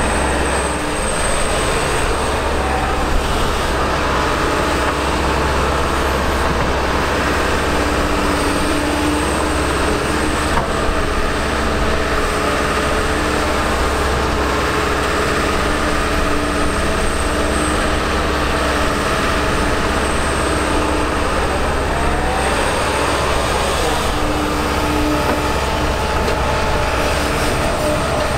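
Kobelco SK210LC tracked excavator working: its diesel engine runs steadily under load with the hydraulics whining, and a rising whine comes about three quarters of the way through.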